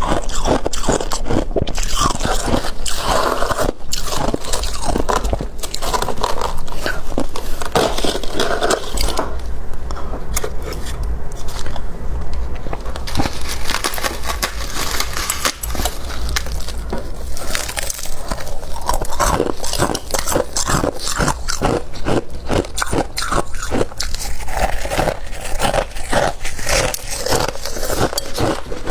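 Crunchy freezer frost bitten and chewed close to the microphone, a dense run of crunches. For a few seconds about a third of the way in the crunching turns duller, with the high crackle gone.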